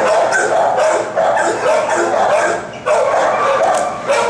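Several shelter dogs barking at once in kennel runs, an unbroken din of overlapping barks and yips.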